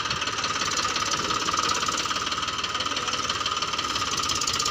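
Eicher 333 tractor's diesel engine running hard with a fast, even knocking beat, hauling a trailer heavily loaded with stone chips.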